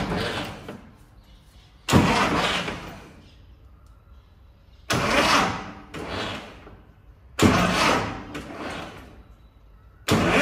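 Antique tractor engine, primed with petrol, being started. It makes four short start attempts about every two and a half seconds, and each burst dies away within a second or two. Near the end it catches and keeps running.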